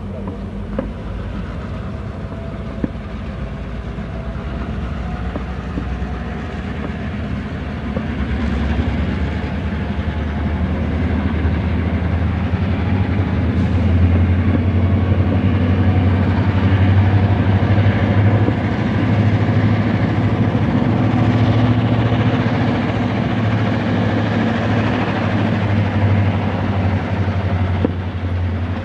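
A pair of Canadian Pacific diesel locomotives running under load as they pull freight cars through the yard: a steady low engine drone that grows louder from about eight seconds in and stays up.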